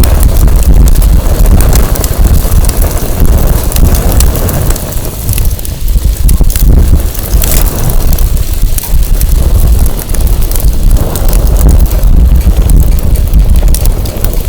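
Strong wind buffeting the microphone in a loud, uneven low rumble, over a wood fire crackling in a fire pit with scattered sharp pops.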